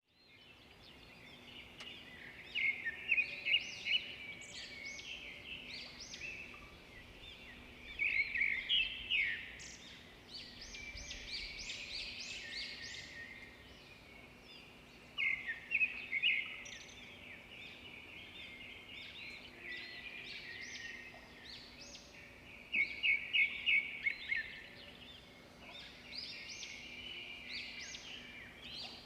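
Birds chirping and singing, with louder runs of quick repeated notes every few seconds.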